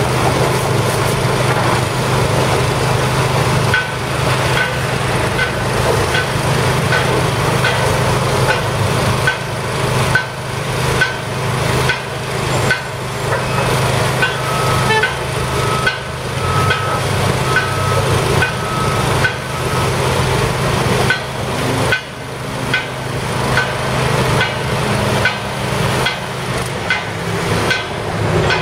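High-pressure water jet from a pressure-washer wand spraying the streetcar track bed, an even hiss over a steady low motor hum. A regular ticking, a little faster than once a second, runs under it from a few seconds in.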